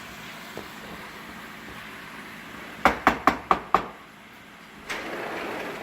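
A cooking utensil knocks sharply against the frying pan five times in quick succession, over the steady low sizzle of chicken strips frying. The sizzle grows louder near the end.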